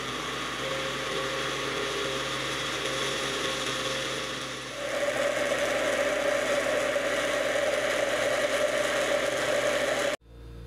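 Electric countertop blender running steadily with a glass jar of thick milk mixture; about halfway through, its hum steps up in pitch and gets louder, and it cuts off suddenly near the end.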